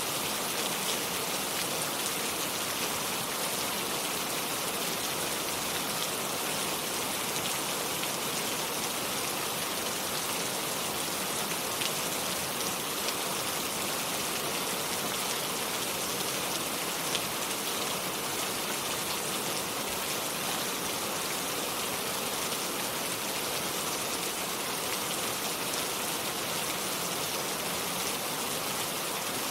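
Steady, even rain falling, with many small drops pattering, and no thunder.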